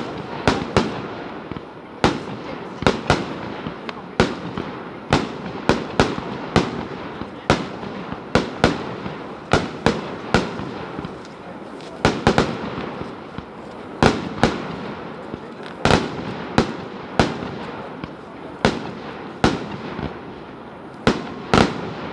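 Fireworks display: a rapid, irregular run of loud shell bursts, about two or three a second, over a continuous crackling rush of noise.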